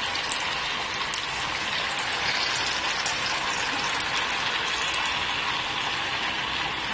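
Batter-coated banana slices (pazham pori) deep-frying in hot oil in a kadai: a steady sizzle with scattered sharp crackles.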